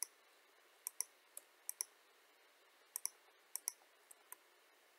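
Computer mouse buttons clicking: about a dozen short, sharp clicks, several in quick pairs, as faces of a 3D model are selected in software.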